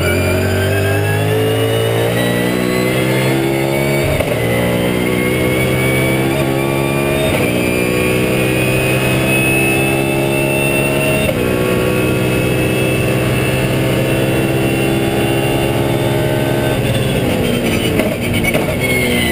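BMW Z4 GT3's V8 race engine at full throttle, heard from inside the cockpit, its pitch climbing steadily through the gears. Quick upshifts drop the note about four, seven and eleven seconds in; near the end the note wavers and falls.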